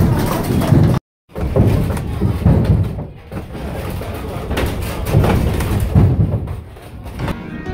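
Wooden gearing of a working windmill turning: large wooden cogged wheels meshing, with a low rumble and irregular heavy thumps. The sound drops out for a moment about a second in, and background music comes in near the end.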